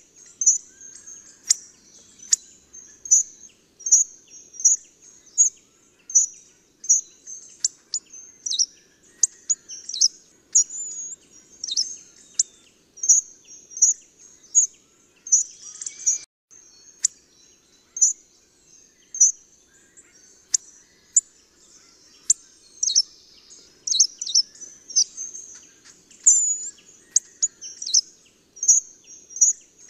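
Hawfinch giving short, sharp, high-pitched calls with clicky onsets, repeated roughly once a second.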